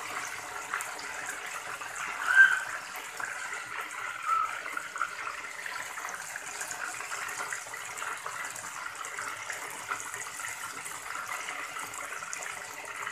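Chicken pieces deep-frying in a pot of hot oil: a steady sizzle, with a brief sharp sound about two seconds in and a fainter one a couple of seconds later.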